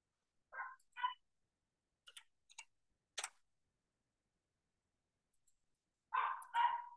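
Three sharp computer keyboard key clicks as a symbol is typed, set between short high-pitched whines: two early on about half a second apart and a louder run of them near the end.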